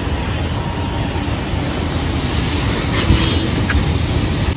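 Pressure washer running and spraying water, a steady loud rushing hiss with a low rumble under it.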